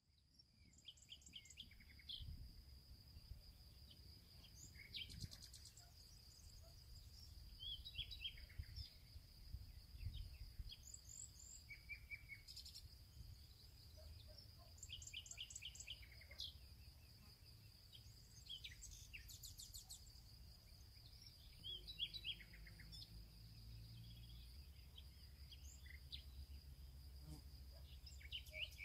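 Faint birdsong: birds chirping in short runs of quick repeated notes, scattered all through. Under them run a steady high-pitched whine and a low rumble.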